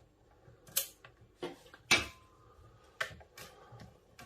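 Handling noise from a soldering station and its power cable being pulled out and checked: about five sharp knocks and clatters, the loudest about two seconds in with a short ring after it.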